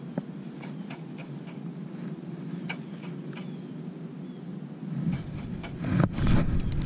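Penn Conflict II spinning reel being cranked steadily to retrieve a lure, with faint irregular ticks. From about five seconds in, louder rumbling handling noise builds, with sharp knocks near the end.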